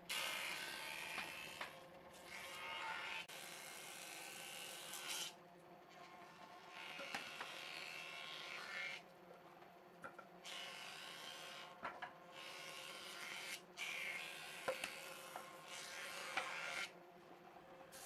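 Thickness planer of a combination woodworking machine planing rough pallet boards. There are several loud cutting passes of a few seconds each, with the motor running steadily in the short gaps between them.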